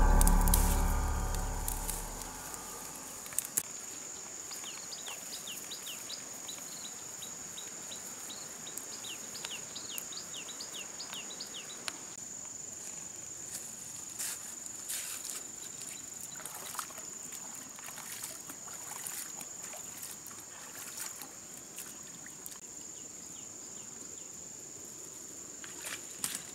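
Background music fades out over the first two seconds, leaving quiet outdoor ambience: a steady high insect drone, a bird calling twice in rapid runs of short falling chirps, and scattered faint clicks and rustles.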